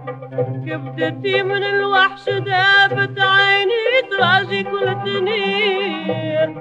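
A woman's voice singing a long, ornamented phrase with wavering vibrato over a low instrumental accompaniment, in a Tunisian fondou folk song.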